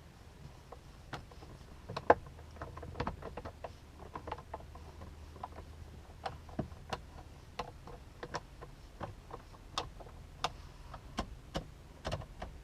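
A screw being driven by hand with a screwdriver: irregular light clicks and taps, with one sharper knock about two seconds in.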